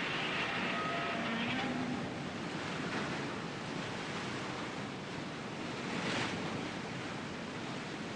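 Steady rushing noise like sea surf, with a wave-like swell that rises and falls about six seconds in.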